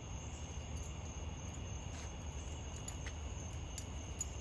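A steady, even, high-pitched chorus of night insects, typical of crickets, with a few faint metallic tinkles scattered through it.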